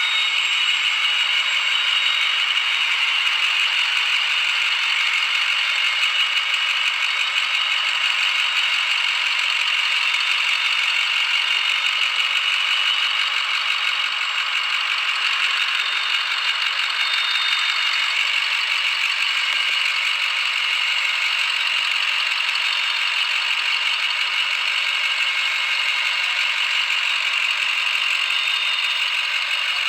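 The International VT365 6.0 V8 diesel engine running steadily with a rattling clatter.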